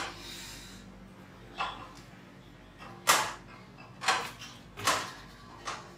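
A lifter setting up under a loaded barbell in a squat rack, with six short sharp sounds about a second apart.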